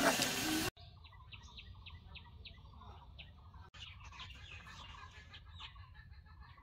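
Loud frying sizzle from a cooking pot cuts off under a second in. After that come faint chickens clucking, with short calls about three times a second.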